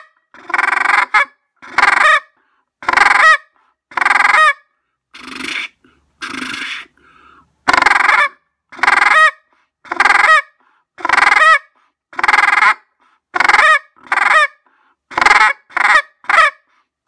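Pacific black brant call being blown in a run of short, rattling goose calls, roughly one a second and coming closer together near the end. Each call ends on a higher note made by back pressure from the cupped hand.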